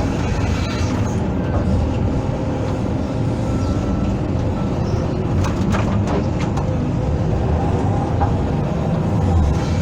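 Hydraulic excavator's diesel engine running steadily under load while it digs, with a few sharp knocks about halfway through.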